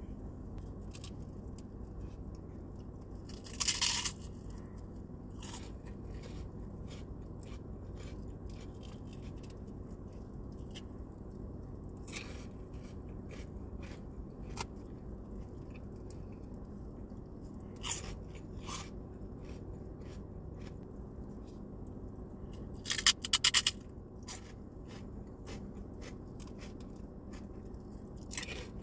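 Close-miked crunching and chewing of pork rinds: a short burst of crisp crunches about four seconds in and a louder rapid cluster of crunches a little past the middle, with softer chewing clicks in between. A faint steady low hum lies underneath.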